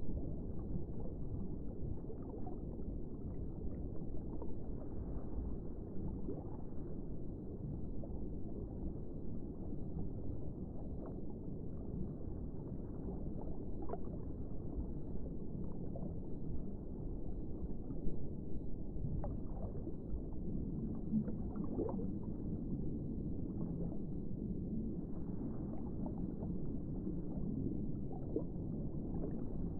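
Underwater ambience: a steady, muffled low rumble with scattered faint clicks and pops.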